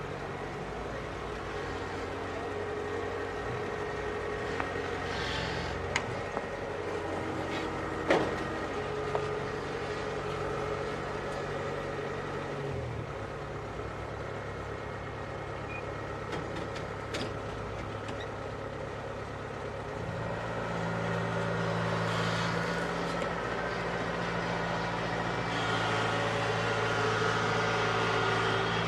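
Kubota DC-70 combine harvester's diesel engine running steadily, with a few sharp knocks about six and eight seconds in. The engine note shifts near the middle and grows louder from about twenty seconds in.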